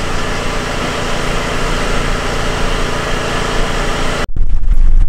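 A garbage truck's engine idling, a steady hum over a hiss. About four seconds in it cuts off abruptly, and loud, gusty wind buffeting on the microphone takes over.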